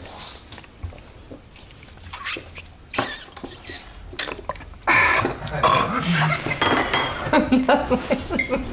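China cups, saucers and spoons clinking and clattering at a canteen table in short, scattered clicks. About five seconds in, a person's voice joins, louder than the clinking.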